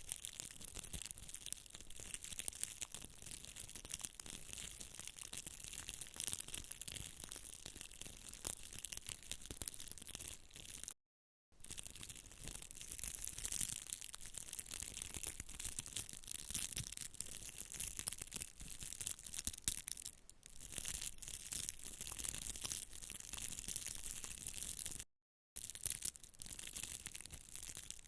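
Close-miked crackling and scratching, a dense stream of tiny crisp ticks, like ASMR handling sounds. It drops out to dead silence twice for a moment.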